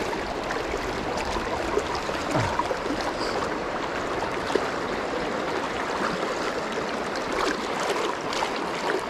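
Fast, shallow river water rushing steadily through a riffle, heard from within the current.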